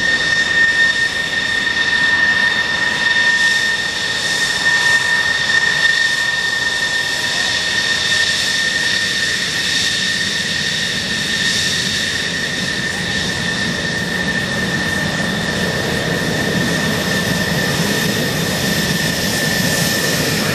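Grumman F-14 Tomcat's jet engines running at taxi power close by: a steady high whine over a constant jet roar. A deeper rumble grows in the last few seconds as the jet's exhausts turn toward the listener.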